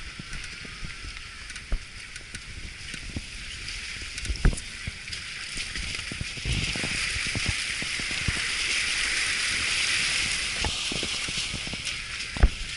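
Steady rush of a mountain stream, swelling for a few seconds in the middle, with irregular low thumps and knocks over it, the loudest about four seconds in and near the end.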